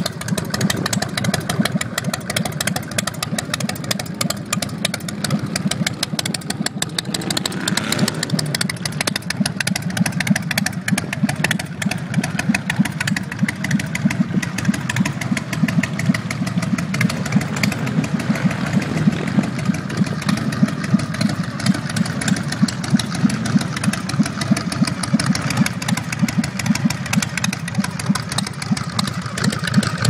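Orange County Choppers custom chopper motorcycle engine running at idle through its exhaust with a steady pulsing beat.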